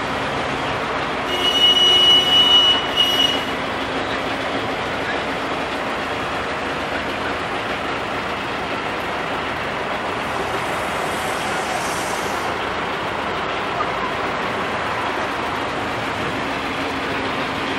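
GAZ-3309 truck's diesel engine idling steadily. About a second and a half in, a high-pitched squeal lasts roughly two seconds.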